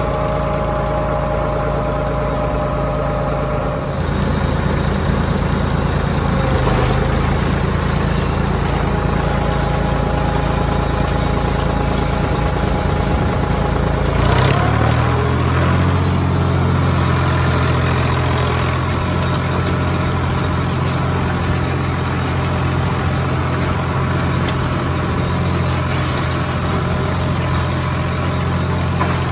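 Ford 4610 tractor's three-cylinder diesel engine running steadily while driving a hay tedder. The engine note steps up about four seconds in and shifts in pitch again about halfway through.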